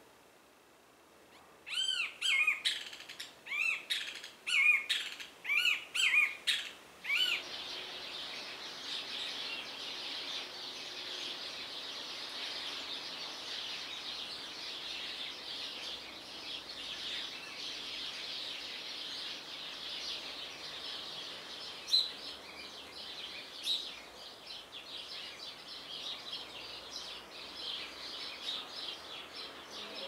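Birds at dawn. For the first few seconds one bird repeats a loud call several times a second. From about seven seconds in, many birds chirp together in a dense, steady dawn chorus.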